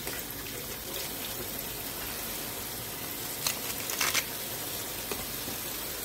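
Kitchen tap running steadily into a stainless steel sink, with a couple of short handling noises about three and a half and four seconds in.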